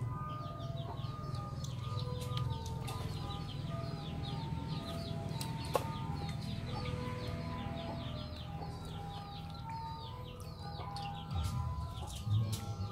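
Birds peeping in a rapid run of short high chirps, several a second, over a soft melody of held notes.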